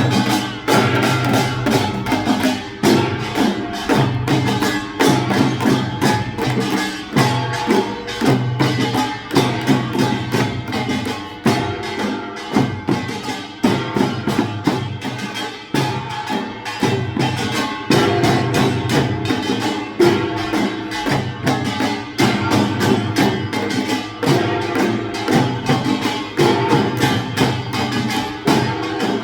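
Korean pungmul percussion troupe playing drums in a fast, driving rhythm, dense strikes throughout, over a lower pitched line that moves between notes.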